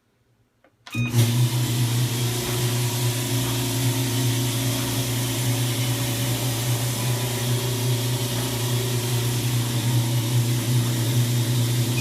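Whirlpool Cabrio clothes dryer starting up about a second in and running loudly and steadily with a low hum and a rattling sound of unknown cause, which comes on about halfway through a dry cycle. It begins to die away at the very end.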